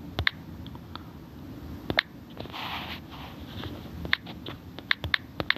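Typing on a smartphone's touchscreen keyboard: irregular short taps, some in quick runs of two or three, with a brief soft rush a little under halfway through.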